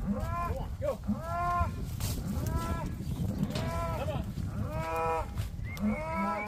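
Cattle bawling, about eight short calls in quick succession, each rising and falling in pitch, over a steady low noise.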